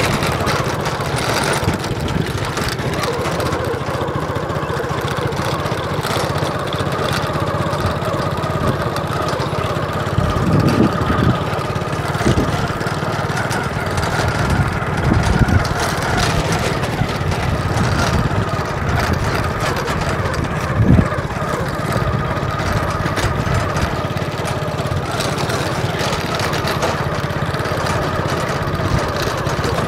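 An engine running steadily, with a few louder knocks or bumps about ten, fifteen and twenty seconds in.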